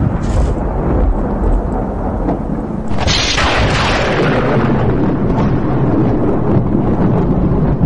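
Thunder rumbling continuously, with a sharper crack about three seconds in that fades over a couple of seconds, over wind buffeting the microphone.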